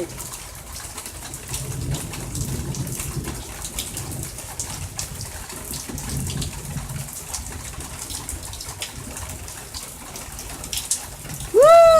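Steady rain falling during a thunderstorm, with many separate drops and drips ticking through it. A faint low rumble comes and goes in the first half.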